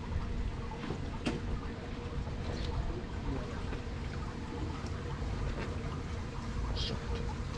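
Steady low rumble with a faint steady hum and a few light clicks and knocks scattered through it.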